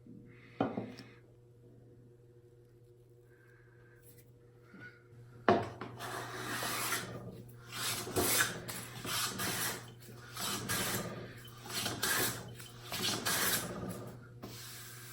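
Stanley No. 3 smoothing plane taking a run of about seven cutting strokes along a wooden board, each a hiss of about a second. A sharp knock comes just over half a second in, and another about halfway through, as the plane is set on the wood.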